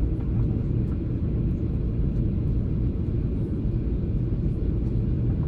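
Steady low rumble of cabin noise inside a Boeing 737-800 in flight, from its engines and the airflow over the fuselage.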